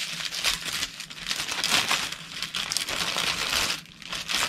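Clear plastic bag crinkling and rustling as small kit pieces are worked back into it by hand, easing off briefly near the end.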